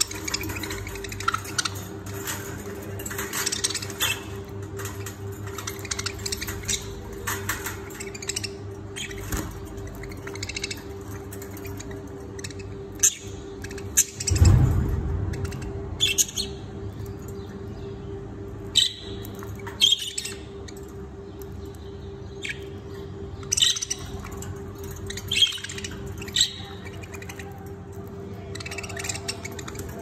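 A cage of budgerigars chirping and chattering in short high calls throughout, over a steady low hum. A dull thump about halfway through.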